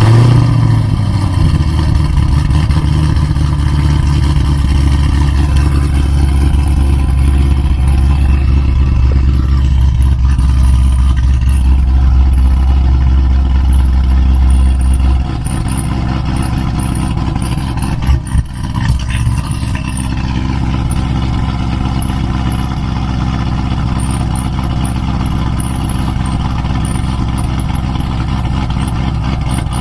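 Chevy SS's cammed 6.2 L LS3 V8 with long-tube headers running at a loud cold-start fast idle, exhaust valves open in sport mode. About halfway through, the idle drops and the exhaust gets noticeably quieter.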